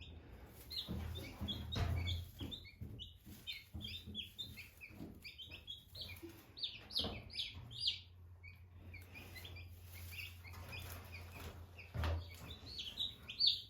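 A brood of newly hatched chicks peeping: many short, high peeps overlapping without pause. Underneath is a low steady hum, and a few sharp knocks sound through it.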